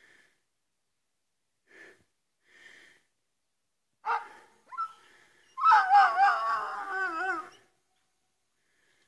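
Hunting dog giving tongue during a roe deer chase: a few faint yelps, two sharp barks about four seconds in, then a long wavering bay lasting about two seconds, the loudest sound.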